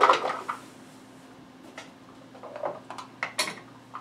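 Garlic cloves rattling inside a small lidded plastic container, shaken to loosen their papery skins; the rattle dies away in the first half second. After it come a few light clicks and taps as the container is handled and opened on the cutting board.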